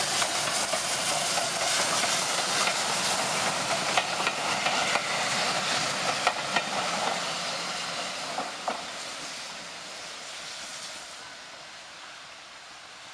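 A GWR steam locomotive and its coaches passing close by, with a steady hiss of steam and a few sharp clicks from the wheels. The sound fades as the train draws away.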